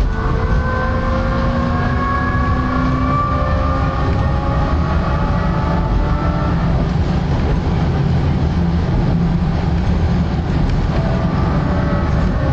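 Puma 118N tram running, heard from inside the car: the electric traction drive whines, slowly rising in pitch for the first six seconds or so as the tram gathers speed, then fades into a steady low rumble of the wheels on the rails.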